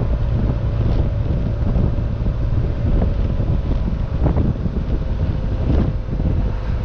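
Wind buffeting the microphone in the open-top cabin of a Porsche 914-6 on the move, with its 2.7-litre twin-plug flat-six running steadily underneath.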